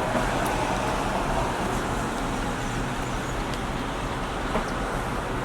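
Steady background noise, an even hiss and rumble with a few faint clicks.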